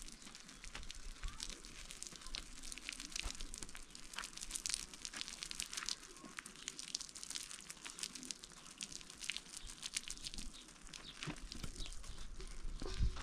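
Water poured from a plastic jug onto dry soil at the foot of a wooden fence post: a faint, dense, irregular crackle of splashes and trickling.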